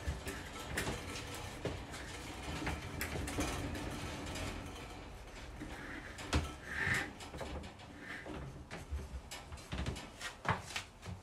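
Metal wire dog crate rattling and clanking as it is handled and set in place, with scattered knocks and clicks and a short squeak about seven seconds in.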